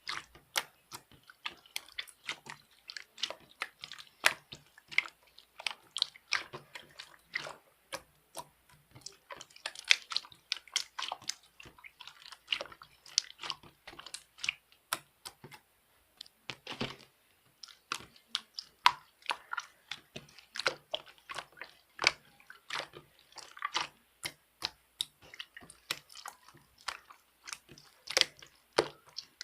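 Close-miked chewing: crisp, irregular crunches and clicks, several a second, with a few brief pauses.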